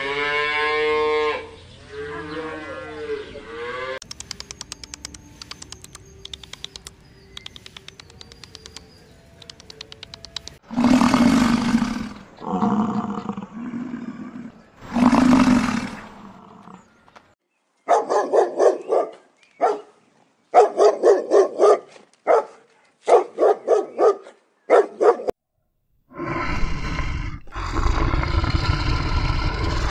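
A run of different animal calls, one after another: meows at first, then a rapid clicking chatter, several long low calls, a quick series of short barking calls, and a deep roar near the end.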